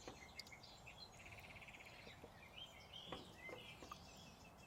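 Faint birdsong from the forest: scattered short chirps and a quick rapid trill a little over a second in, with a few soft clicks.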